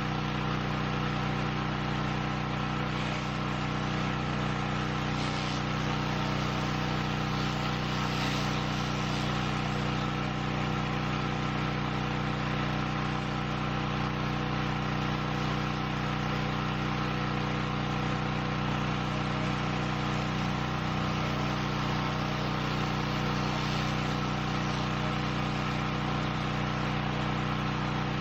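Small gasoline engine of a pressure washer running at a steady speed, with an even hiss over it.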